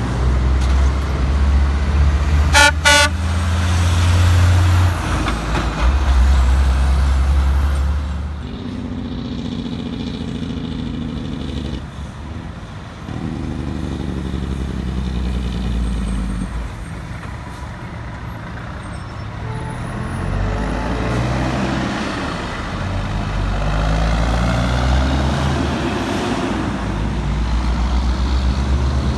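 Heavy diesel trucks pulling through an intersection, with deep engine rumble and the engine note rising and falling through gear changes. Two quick horn toots come about three seconds in.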